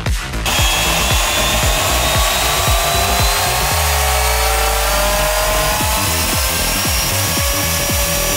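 A 750 W belt sander's motor and belt running free, a steady whirring hiss that starts about half a second in. Its pitch creeps slowly upward as the variable-speed knob is turned up.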